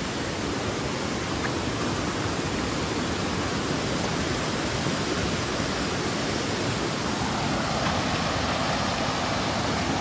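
Clear mountain river rushing through rapids and around large boulders: a steady, even rush of water.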